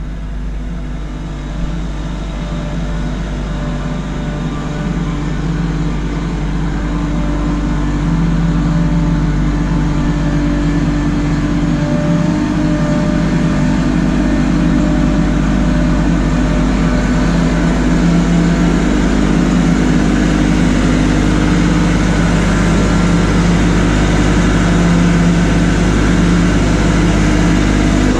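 Kubota B2650 compact tractor's three-cylinder diesel engine running steadily as the tractor drives up and approaches, growing gradually louder as it comes close.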